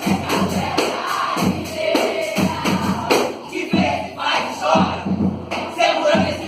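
A group of voices chanting and singing loudly together over music with a steady drum beat.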